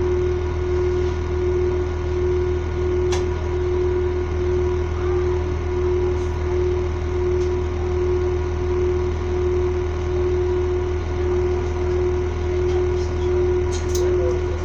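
Stationary train's machinery idling: a constant low hum under a steady droning tone that pulses evenly, with a couple of faint clicks.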